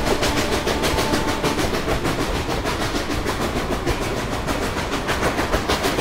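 Train soundtrack: a steady, even clickety-clack of a train running on rails, with no voices.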